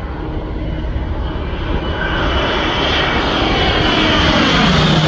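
Agricultural spray plane (crop duster) flying low overhead, its engine and propeller growing steadily louder as it approaches, with the pitch starting to drop near the end.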